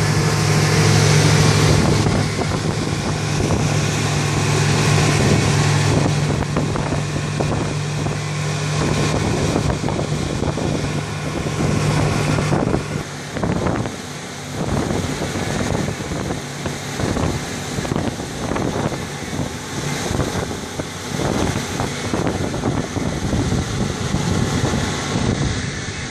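Water taxi's engine running with a steady low hum under wind and water noise; about halfway through the engine hum drops away, leaving wind on the microphone and the rush of water.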